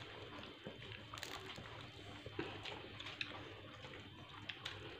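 Faint eating sounds from people taking rice and meat by hand from a shared plate: scattered soft clicks, smacks and rustles over a faint low hum.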